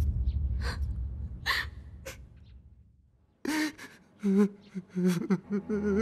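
A man sobbing, with sharp gasping breaths and short broken crying sounds, in grief. A low rumble fades away beforehand, and soft music comes in near the end.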